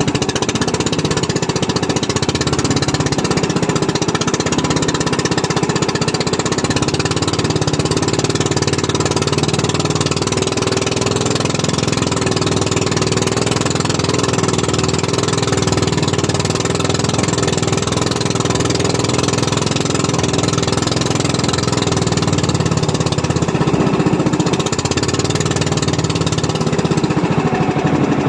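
Small fishing boat's engine running steadily and loudly, a rapid, even chugging.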